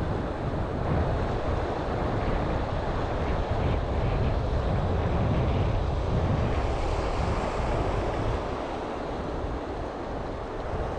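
Steady rush of noise from wind buffeting the microphone over fast-flowing water, with a heavy low rumble.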